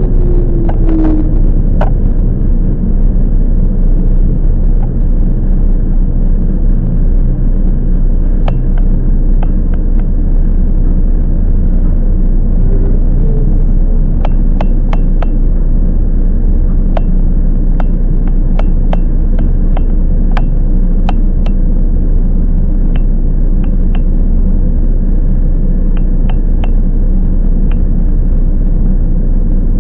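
Toyama Chiho Railway 10030 series electric train heard from inside the car while running: a loud, steady rumble of wheels and running gear, with scattered sharp clicks and rattles through the later part.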